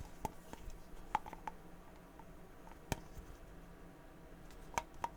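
A handful of light, sharp clicks and taps, scattered unevenly over about five seconds against a faint background hiss, from a vinyl toy figure being handled.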